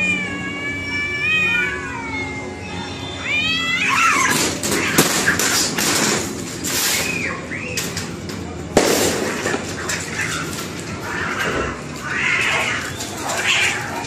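Two cats in a fight: long, wavering yowls of a standoff for the first few seconds, then the fight breaks out into harsh screeching with sharp scuffling knocks.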